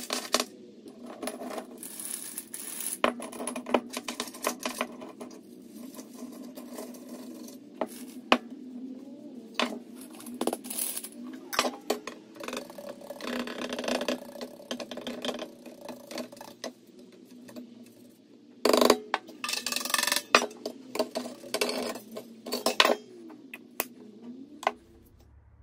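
Irregular clinks and knocks of metal being handled, some ringing briefly, with a few short scraping bursts; the loudest cluster of knocks comes about three-quarters of the way in.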